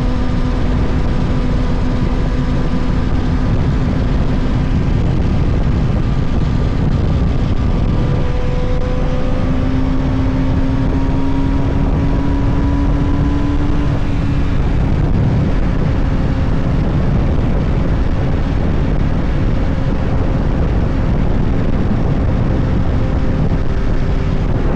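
A vehicle engine holding a steady cruise, its note drifting slowly up and down, under a heavy, continuous rush of wind and road noise.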